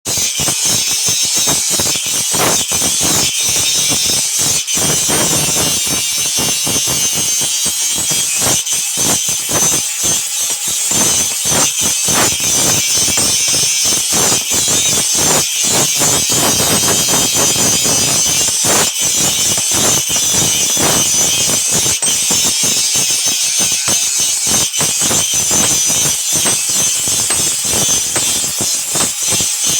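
Steady, loud rasping of a tool grinding or abrading steel, a continuous high hiss with a fast, uneven chatter underneath.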